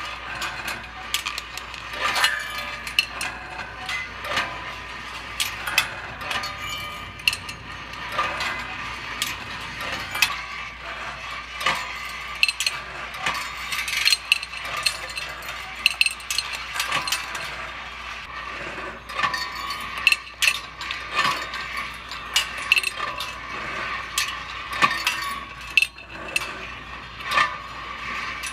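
Rolling ball sculpture of stainless steel wire running: 1/4-inch chrome steel balls roll and drop along wire tracks and a turning wire reel into a steel dish. The result is a constant, irregular patter of sharp metallic clicks and clinks with some brief ringing.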